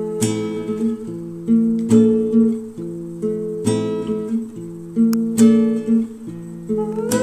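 Music: an instrumental stretch of a song, guitar chords strummed with a fresh attack every second or two.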